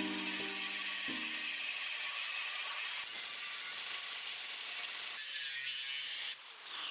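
Angle grinder with a cutoff disc cutting into 3/16-inch-wall square steel tube: a steady, hissing grinding of abrasive disc on steel.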